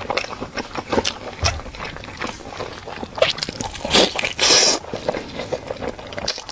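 Close-miked eating sounds: crunching, chewing and smacking, with a longer wet, hissy crunch or slurp about four and a half seconds in.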